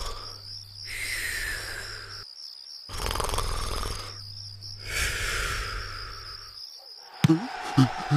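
Cartoon snoring: twice, a rumbling breath in followed by a whistle that falls in pitch on the breath out, over a steady high warbling tone. Near the end come a few sharp clicks and short falling blips.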